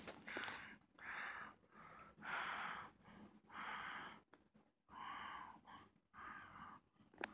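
Faint breathing close to the microphone: short, hissy breaths about every second and a quarter, with a single small click near the end.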